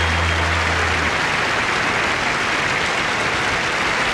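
Large audience applauding, while the band's last low note is held and cuts off about a second in.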